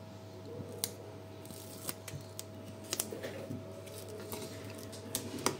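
Scattered soft clicks and rustles of thick double-sided tape being cut and handled, over a faint steady hum.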